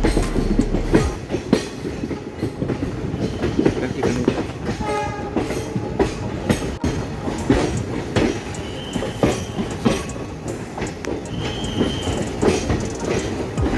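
Passenger train running on the rails, heard from inside a coach: a steady rumble with rhythmic clickety-clack of the wheels over rail joints. Several short, high wheel squeals come in the second half, typical of the wheels taking curves.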